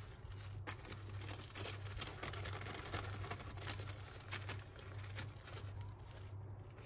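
Plastic bag of grated Parmesan crinkling and rustling in the hand as it is shaken to sprinkle the cheese, with irregular crackles that thin out near the end. A faint steady low hum underneath.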